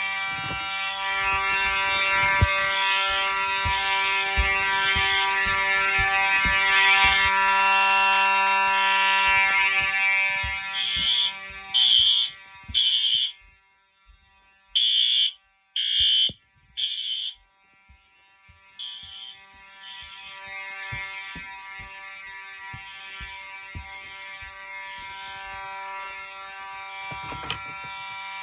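Fire alarm horns sounding together in a pull-station test of a fire alarm system: a loud, steady alarm tone with fast clicking underneath. Partway through it breaks into about six short separate blasts with gaps between them, then settles back into a steadier, quieter sounding.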